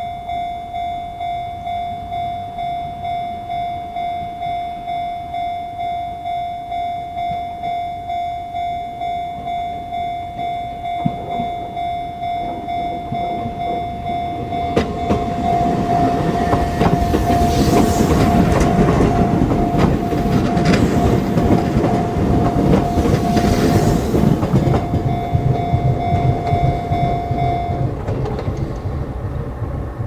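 Electronic level-crossing warning bell of the Chichibu Railway type, ringing in an even repeating ding. About halfway through a Chichibu Railway 5000-series electric train passes over the crossing, its wheels clattering over the rails, and the bell stops shortly after the train has gone, near the end.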